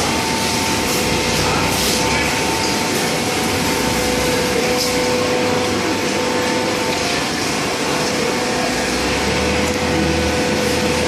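Hydraulic baler's pump and motor running steadily, a continuous machine hum with a constant tone over loud mechanical noise.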